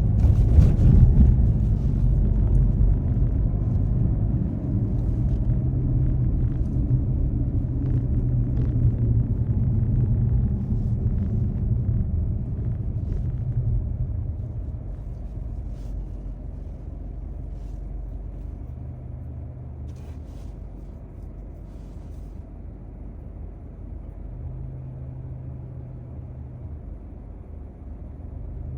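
A car being driven, heard from inside: steady engine and road rumble that eases off about halfway through as the car slows.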